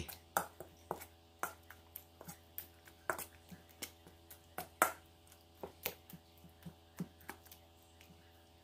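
Metal spoon stirring and scraping a wet mashed-eggplant and egg mixture in a stainless steel bowl, with irregular clinks and taps of the spoon on the bowl, a couple to a few a second, stopping near the end.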